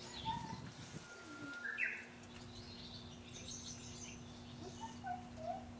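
Birds chirping faintly: a few short, scattered calls over a steady low hum.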